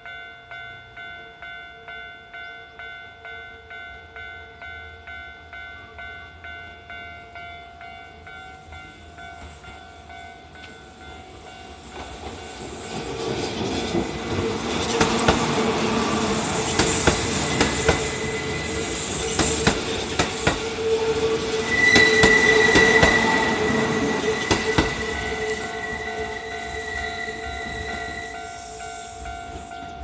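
Japanese level-crossing bell ringing about twice a second. About twelve seconds in, a Kintetsu 30000 series limited express EMU passes over the crossing with loud rail clatter and wheel noise. The passing peaks around halfway and carries a high steady squeal, then fades while the bell keeps ringing.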